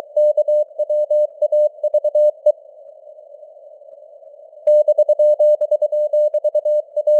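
Morse code (CW) sent at 23 words per minute as a keyed beep of a single steady pitch, over simulated radio static. The sending stops for about two seconds in the middle, leaving only the hiss, then resumes.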